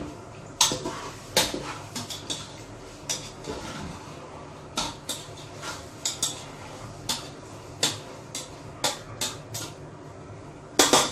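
Metal tongs clacking against a large metal cooking pot as chopped chicken is stirred in it. The clacks come irregularly, about one or two a second, with a louder cluster near the end.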